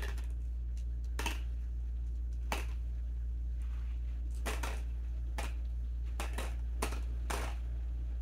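Peanut butter M&Ms dropped one at a time into a coffee-cup lid while being counted, about nine short sharp clicks at irregular spacing, over a steady low hum.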